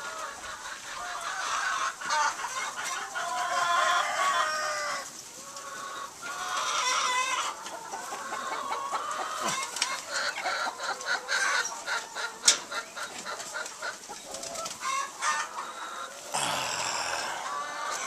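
Many hens clucking and calling at once. Scattered sharp clicks sound over them, most in the second half.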